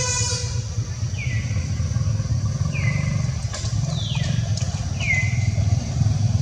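Steady low rumble of a motor vehicle engine running. Over it come four short, high chirps, each falling in pitch, spaced about a second apart.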